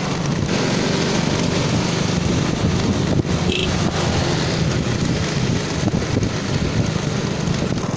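Motorbike engine running at a steady cruise as it rides along a road, with wind buffeting the microphone.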